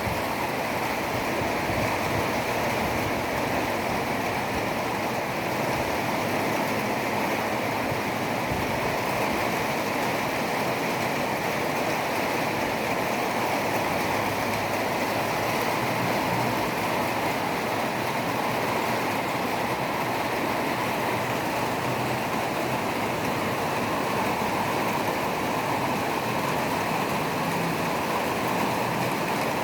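Steady rain: a constant, even rush of falling and running water with no breaks or changes.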